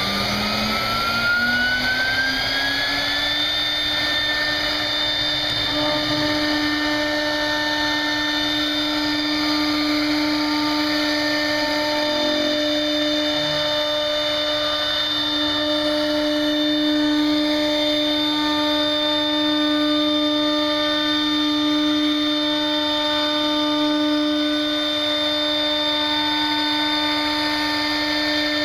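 CNC router spindle spinning up with a rising whine over the first few seconds, then running at a steady pitch as its bit trims the flash from the edge of a molded plastic panel.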